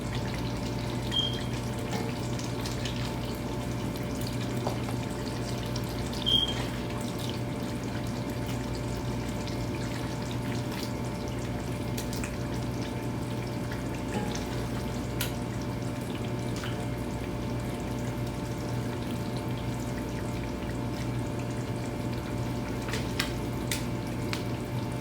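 Steady hum and hiss with several constant tones, like a running motor or fan. There are a few faint clicks and two short high chirps, one about a second in and one about six seconds in.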